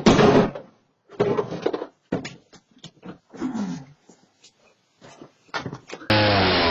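An animal calling in a string of short, separate bursts, with dead silence cut between them. About six seconds in, a loud steady drone starts abruptly.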